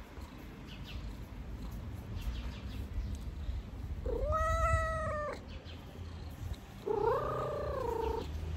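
Black cat purring steadily, with two drawn-out meows: one about four seconds in, and a second, wavering one near the end that drops in pitch as it finishes.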